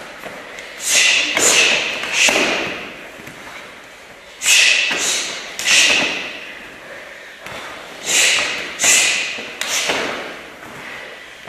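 Sharp slapping impacts of karate strikes and of bodies thrown onto gym mats. They come in three quick bursts of three hits each, ringing in the hall.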